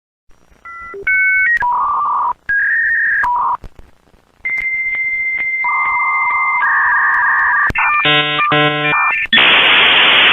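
Dial-up modem connecting: a few short touch-tone dialing beeps, then a long high answer tone with lower handshake tones joining it and a fast-switching warble. Near the end it gives way to a loud hiss of static as the data handshake starts.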